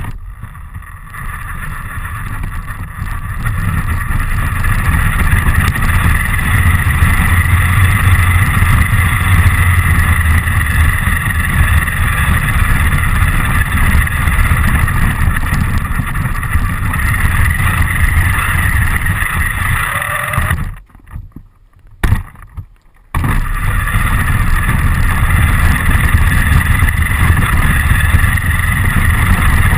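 RC car driving, heard from a camera mounted on it: a steady motor whine over a loud rumble of wheels on the ground. The sound cuts out for about two seconds about two-thirds of the way through.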